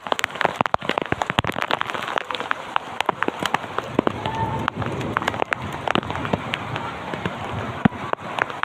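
Heavy rain falling steadily, with many sharp drops and drips tapping on hard surfaces close by.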